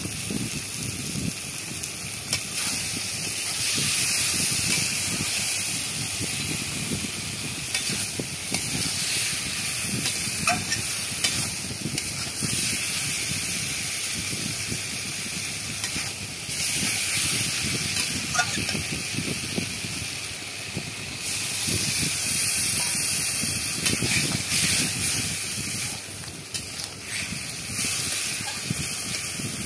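Spiced green banana and shrimp curry sizzling steadily in a metal kadai as the masala is fried down, with a flat metal spatula stirring and scraping against the pan now and then.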